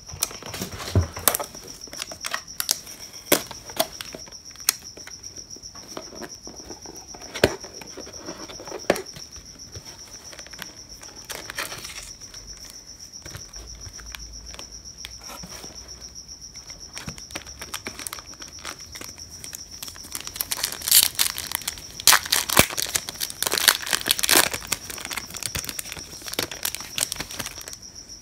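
Foil trading-card pack being crinkled and torn open, loudest from about twenty seconds in, after scattered clicks and rustles of the cardboard box and packs being handled. A cricket chirps steadily throughout at a high, even pitch.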